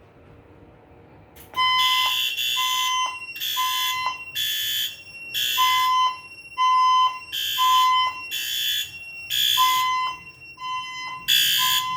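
Building fire alarm sounding, starting suddenly about a second and a half in. Its tones come in repeating groups of three with a short pause between groups, the temporal-three evacuation pattern.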